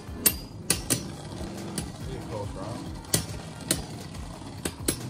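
Two Beyblade Burst tops, Dynamite Belial and Guilty Longinus, spinning in a clear plastic stadium and striking each other: sharp clacks at irregular intervals, sometimes two in quick succession, over the steady sound of the tops spinning on the stadium floor.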